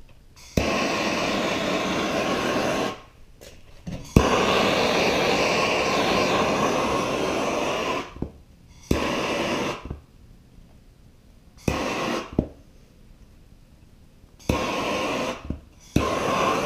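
Handheld MAP gas torch burning with a steady hiss, switched on and off in bursts: about two seconds, then about four, then several shorter ones, each starting with a click. The flame is swept over freshly poured epoxy resin to pop air bubbles.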